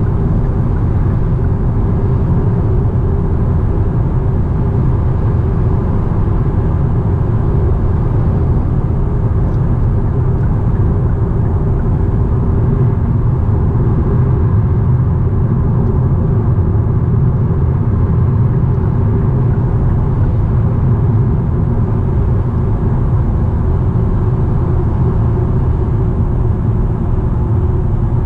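Hyundai Sonata driving at a steady pace: an even, low rumble of engine and tyre noise that stays unchanged throughout.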